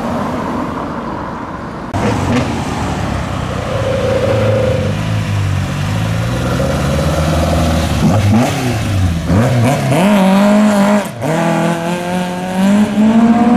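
Car engines pulling away, with exhaust notes rising and falling as they rev. About three-quarters of the way through the note cuts out briefly, then climbs steadily as a car accelerates.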